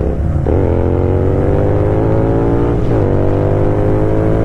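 Royal Enfield Continental GT 650's parallel-twin engine accelerating hard, the revs climbing steadily, with a brief dip at each upshift: once just after the start and once about three seconds in.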